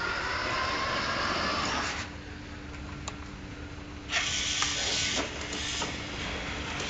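Toy car's small motor and gears whirring in two spells: about two seconds at first, then a louder spell of about a second, with clicks, about four seconds in.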